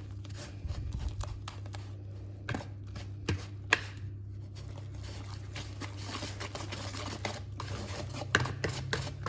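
Scattered light clicks and knocks of kitchen handling over a steady low hum, with a short rustling hiss in the second half.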